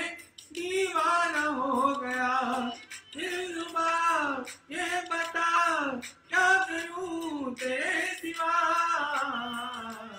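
A man singing solo into a handheld microphone: about five long sung phrases with gliding, ornamented pitch, separated by short breaths.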